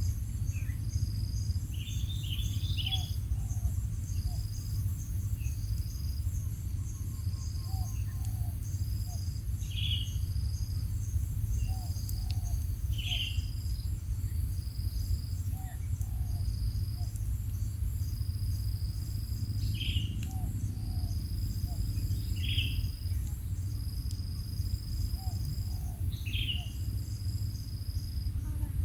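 Outdoor ambience: insects trill steadily in short pulses, and a bird gives short chirps every few seconds, over a steady low rumble.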